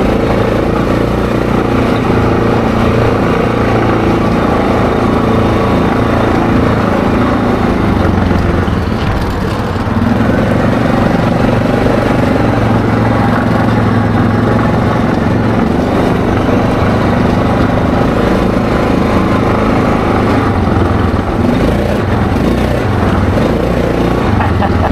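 ATV engine running steadily while riding along a dirt trail. It eases off briefly about nine seconds in, then pulls again.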